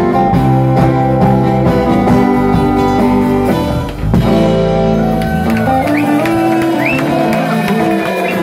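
Live rock band with electric guitars, bass and drums playing the final bars of a song. About four seconds in there is a brief break, after which the bass drops away and held guitar chords ring on.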